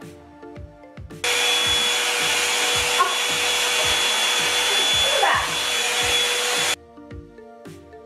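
Revlon One-Step hot-air round-brush dryer running, most likely on its high setting: a steady rush of air with a thin whine. It cuts in suddenly about a second in and cuts off suddenly near the end. Light background music plays throughout.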